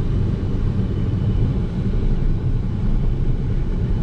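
A vehicle engine running steadily at an even speed, with a low, constant hum.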